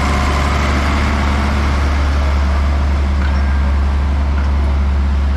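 Large diesel tractor engines running steadily, a deep constant hum with no revving.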